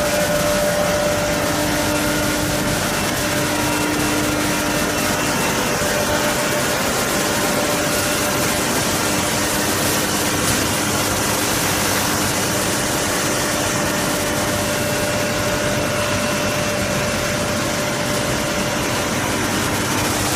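Straw pellet production line machinery running: a steady, even mechanical din with a couple of constant hum tones through it.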